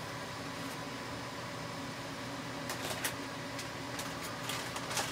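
Steady low background hum, with a few faint short clicks and rustles of hardware being handled in the second half.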